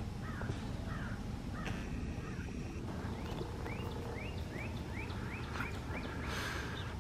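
Birds calling over a steady low rumble: a run of short rising chirps, about two a second, in the middle, then a brief harsh call near the end.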